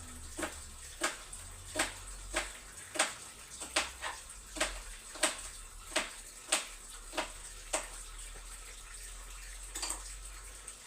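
Tap water running into a kitchen sink, with light, evenly spaced knocks about every two-thirds of a second, then a brief cluster of knocks near the end.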